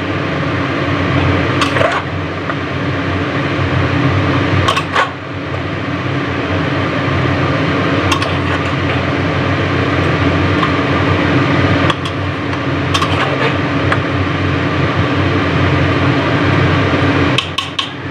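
Steel ladle stirring chunks of pork and potato in an aluminium pressure cooker, knocking sharply against the pot about half a dozen times, over a steady hum.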